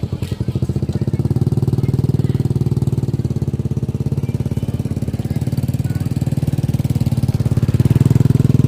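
A small engine running steadily close by, with a rapid, even pulsing beat that gets a little louder near the end.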